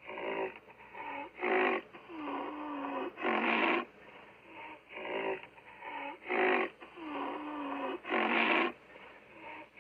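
Woolly rhinoceros sound effect, an imagined voice for the extinct animal: a run of short, breathy snorting calls and a longer, lower call with a steady pitch. The same sequence repeats about every five seconds.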